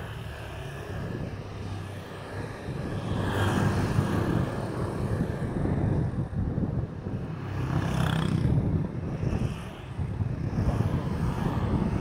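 Road traffic with wind rumbling on the microphone of a camera mounted on a moving bicycle; vehicles swell past about three and a half and eight seconds in.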